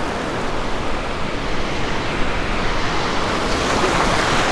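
Breaking surf washing in over shallow sandy water: a steady rush of waves with a slight swell near the end.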